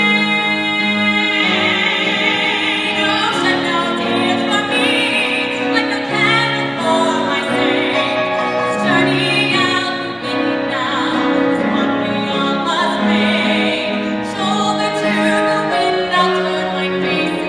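A woman singing a musical-theatre ballad live in a full, operatic voice, holding a long note that ends about a second and a half in, then carrying on with sung phrases.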